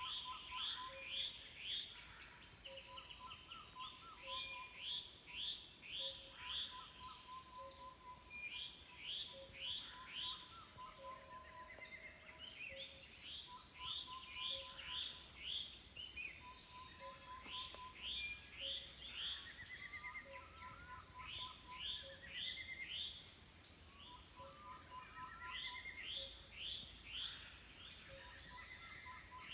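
Chorus of several forest birds calling over one another. Bursts of quick falling notes come again and again, with runs of lower short notes beneath them and a soft pip about once a second.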